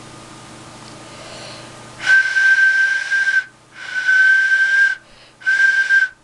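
Freshly sculpted, unfired clay duck whistle blown three times, each a single steady high tone: two blasts of about a second and a shorter third near the end. The whistle now sounds cleanly, its air channel just recut, and it gives one tone only.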